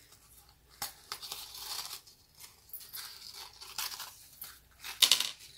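Rustling and crinkling of a sheer organza drawstring pouch and stiff cardstock earring cards being handled, in irregular bursts with the loudest rustle about five seconds in.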